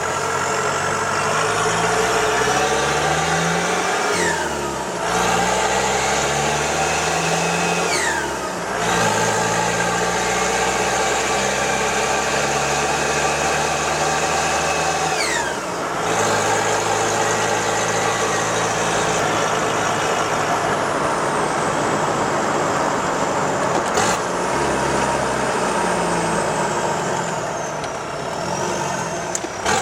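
Land Rover 110's Isuzu 4BD1T 3.9-litre four-cylinder turbo diesel, running on a short header exhaust, being driven through the gears. The turbo whistles over the engine note as it pulls. The whistle sweeps sharply down about 4, 8 and 16 seconds in as the throttle lifts and the factory dump valve blows off. There is a short sharp burst near 24 seconds.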